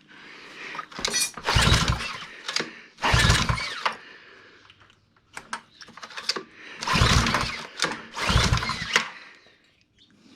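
Ryobi pressure washer's small petrol engine being pull-started: four yanks on the recoil starter, in two pairs, each cranking it briefly without it catching. The engine is starved of fuel, which the owner puts down to a dirty carburetor with no gas rising up the emulsion tube.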